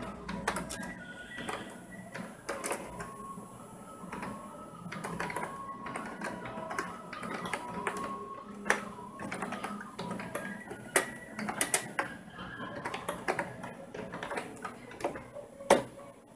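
Computer keyboard keys clicking in irregular runs of keystrokes as code is typed.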